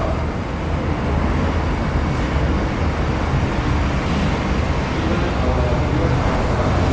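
Steady low rumble and hiss of indoor room noise, with faint voices in the background.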